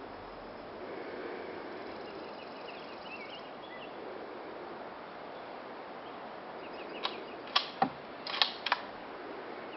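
Steady outdoor noise with a few faint high chirps about three seconds in, then a quick cluster of six or so sharp clicks and knocks about seven to nine seconds in.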